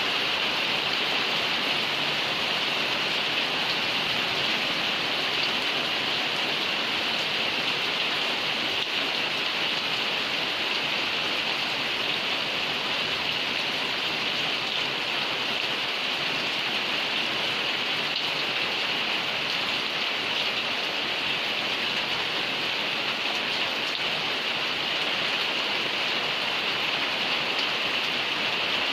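Steady heavy rain falling, a continuous hiss of drops on surfaces with no let-up.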